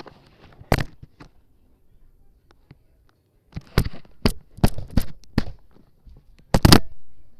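A series of sharp, irregularly spaced clicks and crackles, a dense cluster in the middle and the loudest pair near the end.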